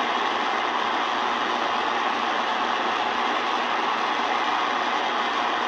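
Sangean ATS-909X2 shortwave receiver in AM mode giving out a steady static hiss through its speaker while it is tuned across empty frequencies near 5.1 MHz.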